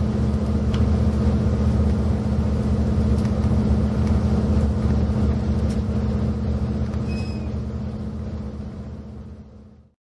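Interior running noise of a JR Hokkaido KiHa 183-series diesel railcar under way: a steady low hum from the diesel engine over the rumble of the running train. It fades out near the end.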